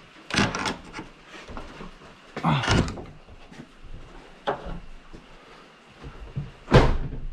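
Metal passenger-car door being handled, giving a few short clunks and knocks, the loudest near the end.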